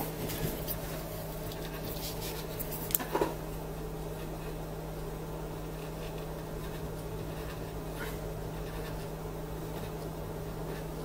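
A steady low electrical hum, with a brief cluster of light clicks about three seconds in and a faint click near eight seconds, heard while a soldering iron heats a pad on a circuit board.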